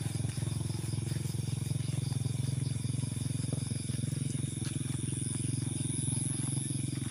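Night chorus of frogs and insects: a steady low pulsing drone of calling frogs, with insects chirring high and thin above it.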